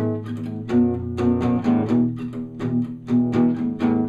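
Guitar playing chords in a steady strummed rhythm, with no singing: an instrumental gap between the song's lines.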